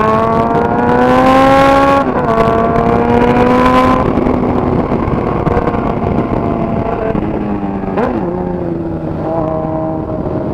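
Honda Hornet motorcycle with a straight-pipe 3-inch exhaust accelerating hard through the gears. The engine note climbs, drops at an upshift about two seconds in and again about four seconds in, then runs steadier with a brief throttle dip and blip about eight seconds in.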